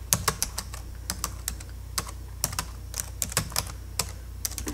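Keyboard typing sound effect: irregular key clicks, about five or six a second, over a faint steady low hum.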